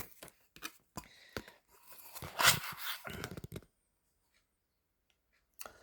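Packaging being rustled and torn as an item is pulled out of it: a run of crinkles and short tearing rips, loudest about halfway through, then the sound cuts off suddenly.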